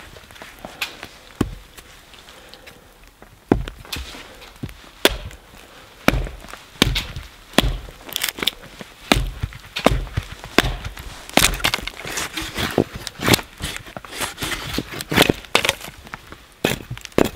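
Hatchet chopping a split of dry cedar propped against a stump, knocking off kindling: a few light blows at first, then steady chopping from about four seconds in, roughly one to two sharp wood strikes a second.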